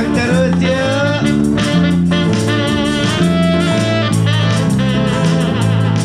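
Live dangdut band playing, with an electric guitar line to the fore over a steady bass line, keyboard and drum kit.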